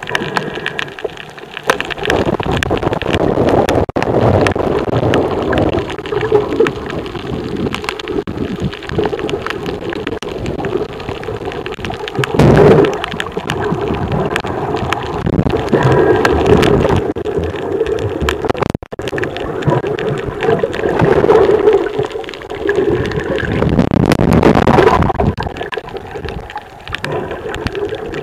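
Muffled, continuous rushing and gurgling of water heard through an underwater camera, swelling louder several times.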